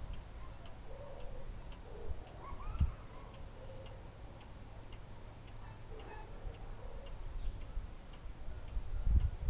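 Vedette French pendulum wall clock ticking steadily with an even beat. There is a low knock about three seconds in and a low rumble near the end.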